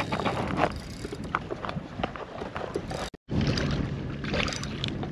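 Choppy water lapping against a kayak's hull in a stiff wind, with scattered small knocks and clicks. The sound cuts out for a moment about three seconds in, and a faint steady low hum comes in after it.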